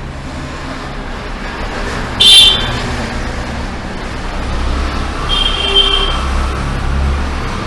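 Street traffic with a short, high-pitched vehicle horn toot about two seconds in and a fainter horn around five and a half seconds; a low engine rumble swells in the second half as a vehicle passes.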